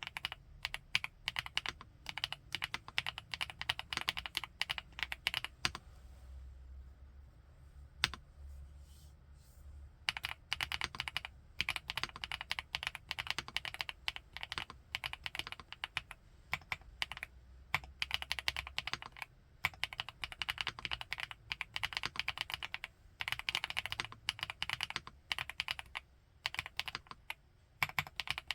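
Fast typing on an FL-ESPORTS Geo75 mechanical keyboard with Kailh x Funkeys BCP linear switches, a dense run of keystrokes with the low-pitched, bottoming-out clack typical of this switch. The typing stops for a few seconds about a quarter of the way in, with a single keystroke in the gap, then carries on with short pauses between bursts.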